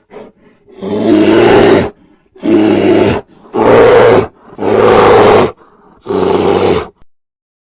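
Brown bear growling: five calls of just under a second each, spaced about a second apart. They stop about a second before the end.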